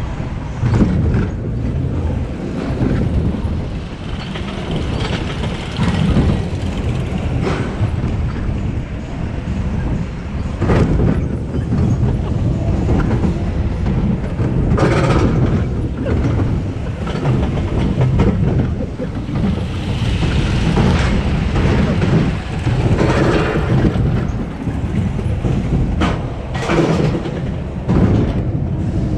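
Roller coaster car rattling and clattering along its steel track, with a steady low rumble and many irregular knocks from the wheels and car. Heard on board, it sounds like shopping trolleys.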